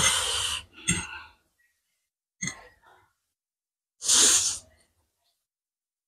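Loud slurp of spicy instant noodles sucked off a fork about four seconds in, a hissy half-second rush of air, after a similar short burst at the start and a couple of soft mouth clicks in between.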